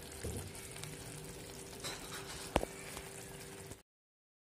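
Faint bubbling and sizzling of a creamy fish curry simmering in a pan, with one sharp click about two and a half seconds in; the sound cuts off abruptly near the end.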